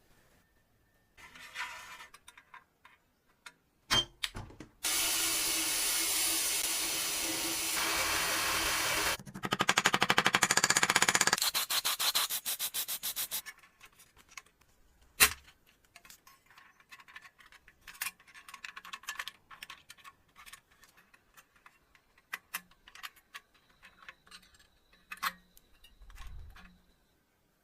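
Sanding: a steady loud stretch, then a run of fast, rhythmic rubbing strokes, with scattered clicks and light knocks of parts being handled before and after.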